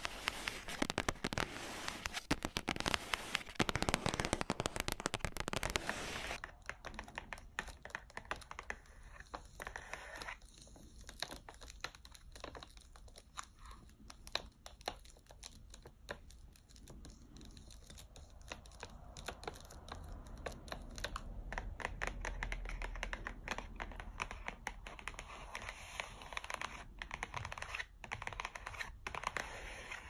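Long fingernails tapping and scratching on chocolate bar packaging: cardboard bar boxes and a plastic wrapper, a run of quick clicking taps. The first six seconds hold dense, fast scratching; after that come sparser taps and light crinkles.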